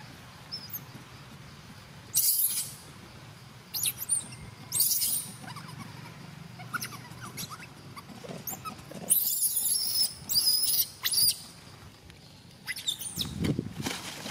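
A baby monkey squealing: short high-pitched squeals, several times, the loudest and longest cluster about two-thirds of the way through.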